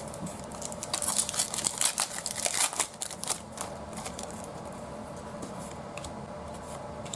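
Plastic trading-card pack wrapper crinkling and crackling as it is handled and torn open, busiest in the first few seconds, then a few scattered crackles.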